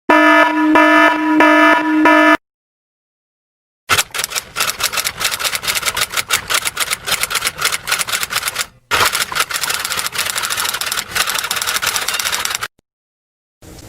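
Sound-effect clips: first a honking horn in a few quick pulses, then after a short gap a long, fast clatter of rapid clicks, like typewriter keys, with one brief break.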